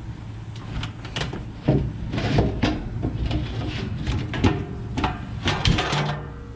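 Irregular knocks, clicks and rubbing of things being handled, with the sharpest knocks in the second half and the last one just at the end.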